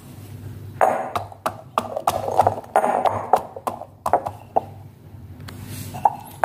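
Wooden pestle pounding peeled garlic cloves in a metal mortar: ringing metallic knocks about three a second, starting about a second in and stopping a little past halfway, with one more knock near the end.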